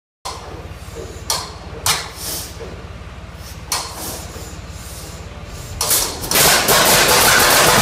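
A 1928 John Deere Model D being hand-started by turning its flywheel, with three sharp metallic knocks. About six seconds in, the two-cylinder engine fires and runs loudly with a fast, even popping.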